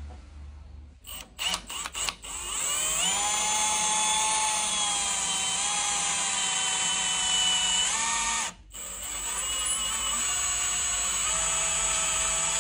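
Power drill turning a titanium hex-shank drill bit: a few clicks, then the motor whines up about two seconds in and runs steadily. It stops briefly past the two-thirds mark, then starts again.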